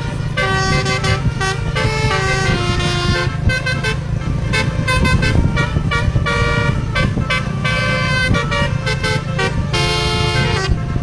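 Basuri musical horn on a bus playing a slow melody: a string of held, multi-tone horn notes stepping up and down in pitch, with brief pauses between phrases, over a steady low rumble.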